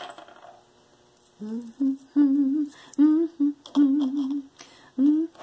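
A woman humming a tune to herself in short held notes with a wavering pitch, starting about a second and a half in.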